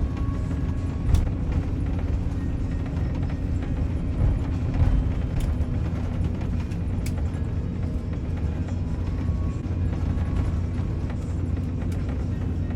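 Cabin noise inside an Airbus A350 around takeoff: a steady low rumble from its Rolls-Royce Trent XWB engines and the airframe. A few sharp clicks from the cabin cut through it, about a second in and again around five and seven seconds.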